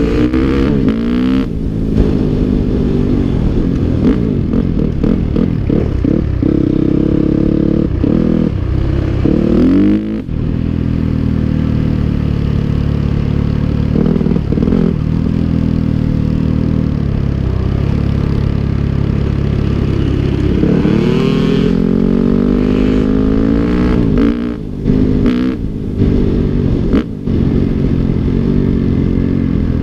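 Dirt bike engine heard from the rider's helmet, running hard with its revs repeatedly climbing and dropping back as it is ridden along a dirt road, with a few brief throttle-offs near the end.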